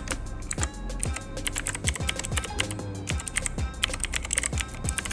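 Galax Stealth 03 mechanical gaming keyboard being typed on: a rapid, irregular run of clacking key presses. Background music with a steady beat plays underneath.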